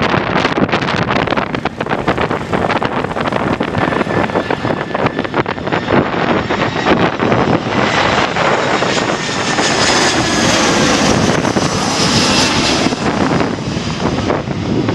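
Airliner's jet engines passing on landing approach, swelling to a peak with a high whine about twelve seconds in, one tone slowly falling in pitch as it passes. Gusty wind buffets the microphone throughout.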